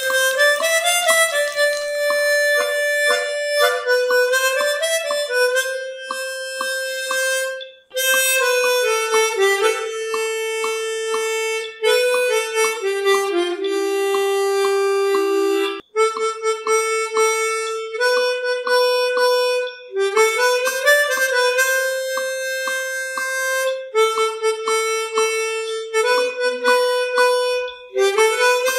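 Background instrumental music: a reedy melody over a repeating accompaniment, in phrases of about four seconds with two brief breaks.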